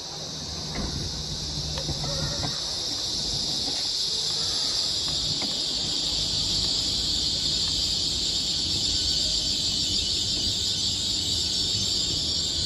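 GWR Class 800 IET train braking into a platform at low speed: a loud, steady, high-pitched brake squeal over the low rumble of its underfloor diesel engines.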